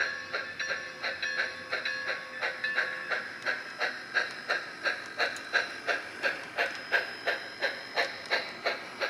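Sound decoder in an HO-scale Southern Pacific MT-4 Mountain-type steam locomotive model playing steady exhaust chuffs, about three a second, through its small onboard speaker as it runs.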